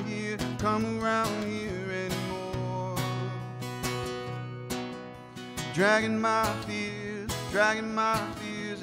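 Live acoustic guitar playing a country-style instrumental, picked notes with a few sliding, bending phrases.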